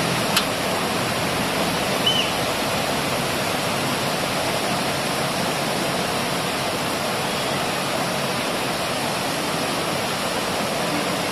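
Heavy rain pouring steadily, heard through an open window as an even rushing hiss.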